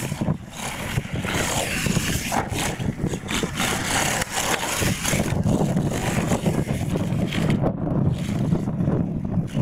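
Radio-controlled monster truck driving across a dirt course, its motor running with a continuous, fluctuating sound.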